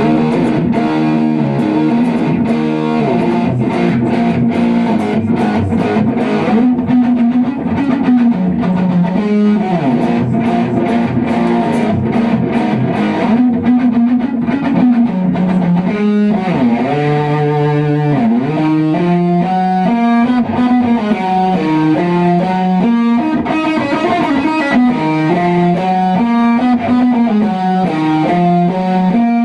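Rock music led by a distorted electric guitar over a moving bass line, playing steadily.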